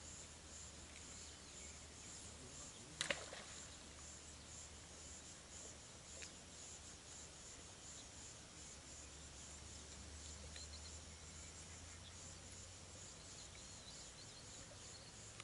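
Faint, steady high-pitched insect chirring, with one sharp click about three seconds in.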